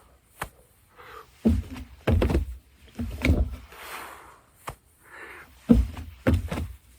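A man doing burpees: repeated thuds as he drops to the ground and jumps back up, with heavy breaths and grunts, about one rep every second or so.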